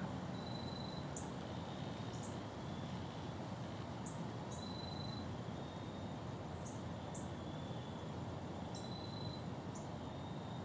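Quiet field ambience: a steady low hiss with faint high chirps, often in pairs, and short steady whistled notes repeating every few seconds, from small wild creatures calling in the field.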